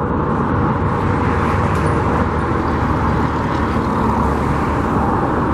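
Steady outdoor background noise: a constant low roar with no distinct events.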